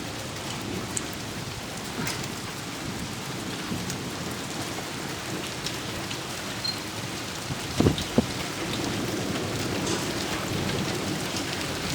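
Heavy thunderstorm rain falling steadily, a dense even hiss of drops, with two sharp knocks close together about eight seconds in.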